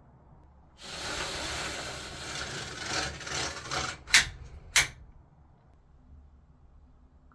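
A rubbing, scraping noise for about three seconds, then two sharp clicks about half a second apart.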